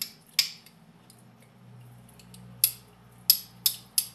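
A metal spoon clinking sharply against a ketchup bottle as ketchup is scooped out: two clicks near the start, then four quick clicks over the last second and a half.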